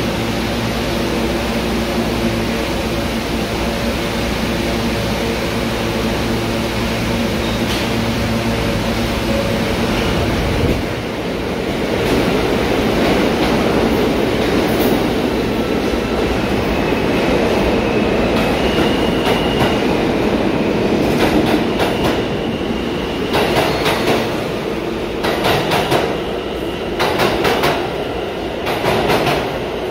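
New York City subway train of R160 cars standing at the platform with a steady equipment hum, then pulling out about ten seconds in: a rising electric motor whine, then the wheels clattering over rail joints as the cars pass faster and faster.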